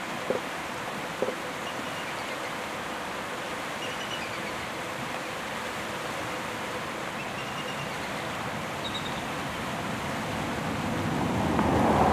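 Shallow creek water rushing steadily over stones, with a few faint high chirps. A low rumble swells near the end.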